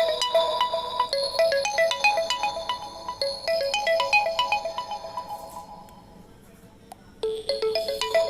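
Mobile phone ringtone: a looping electronic melody of quick, bell-like notes over held tones. It fades out about five seconds in and starts over from the top about seven seconds in.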